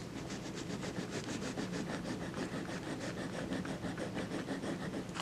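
A jewelry chain link rubbed quickly back and forth on a black touchstone, an even scratching of several strokes a second. The link is rubbed hard to leave a streak for acid testing: plate would wear through to show the base metal.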